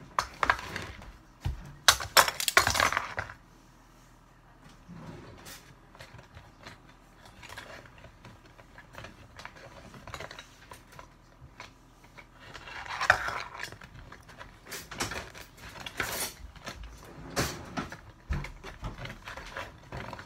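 Spoons and a utensil scraping and clinking in a plastic mixing bowl as butter is mixed into flour for a pie crust, in irregular bursts. The loudest clatter comes about two to three seconds in and again around thirteen seconds in.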